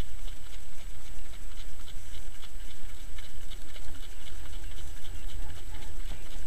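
Trotting horse's hooves beating on a sand track in an even rhythm, about three beats a second, over a steady low rumble of wind on a sulky-mounted microphone.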